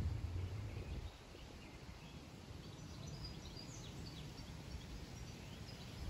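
Faint outdoor ambience with small birds chirping: short high chirps, thickest in the second half. A low rumble sits under the first second.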